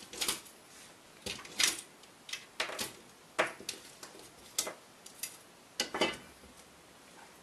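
Straight pins clinking as they are laid down in a small pile on the table, with light rustling of fabric. The sharp clicks come irregularly, about a dozen of them, and stop about six seconds in.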